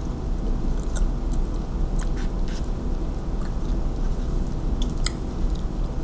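Crunchy spicy cheddar taco shell being chewed and broken apart, with a few sharp crackles about a second in, around two seconds and near five seconds, over a steady low hum.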